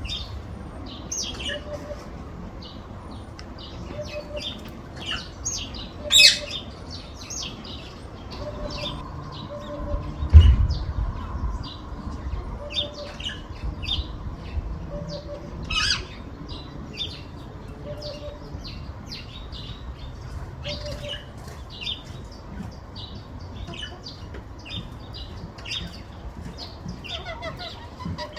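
African hoopoe calling, short low hoots, single or in pairs, repeated every couple of seconds, over the higher chirps of other garden birds. A loud low thump about ten seconds in.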